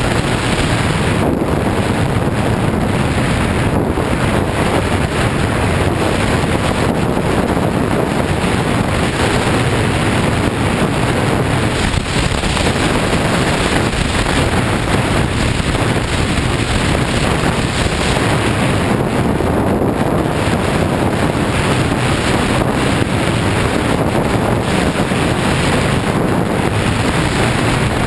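Steady wind rush on the camera's microphone as a BMW F 800 GS motorcycle rides along a gravel road, with the bike's running and tyre noise mixed in underneath.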